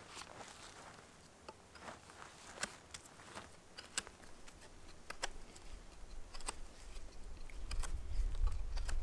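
A knife whittling a wooden stick: irregular, sharp clicks and short scrapes as the blade cuts into the wood. A low rumble builds near the end.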